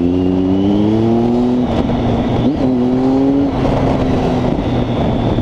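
Triumph Street Triple 675's three-cylinder engine through a full Arrow exhaust, its note climbing steadily for about a second and a half, breaking off, then a quick blip and a steadier note.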